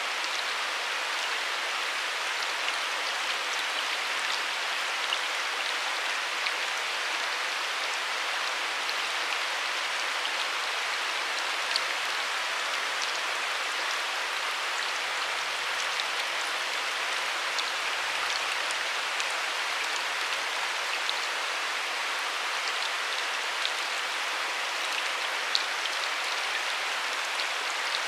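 Steady rush of river water flowing and lapping over rocks, with scattered faint ticks and small splashes.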